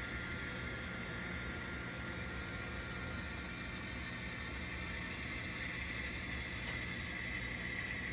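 N scale model diesel locomotive running, its sound decoder playing a steady diesel engine drone through a tiny onboard speaker.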